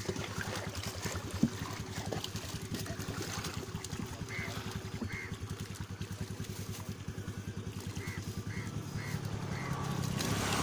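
A small engine running steadily with a fast, even beat, swelling slightly near the end, with a few short high chirps over it.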